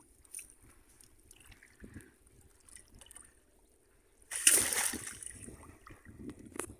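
Shallow floodwater splashing and sloshing around a bamboo plunge-basket fish trap as hands grope inside it for fish. There is one loud splash about four seconds in, after a few faint small sloshes.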